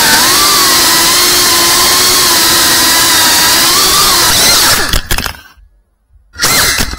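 Small FPV quadcopter's motors and propellers whining steadily, with small wavers in pitch as the throttle changes. About five seconds in the whine drops in pitch and cuts out, then comes back in one short burst before cutting out again.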